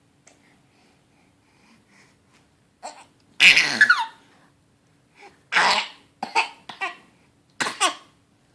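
A run of short, harsh coughs in several bouts, starting about three seconds in, the loudest bout soon after; coughing brought on by eating a tag.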